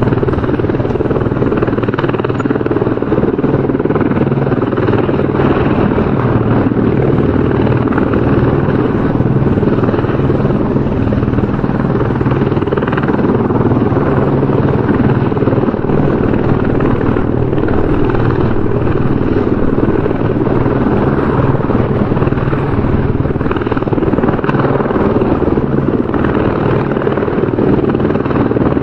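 Helicopter rotor and engine running steadily, a continuous dense drone with a fast rotor flutter.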